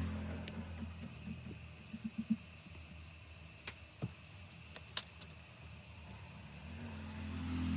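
Scattered light clicks and ticks: a quick cluster about two seconds in, then a few sharper single clicks around four to five seconds in, over a steady low hum and a faint high whine.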